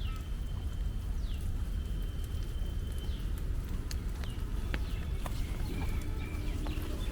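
Bird calls: high whistles that slide down and then hold a steady note, one held for about two seconds, over a constant low rumble, with scattered sharp clicks.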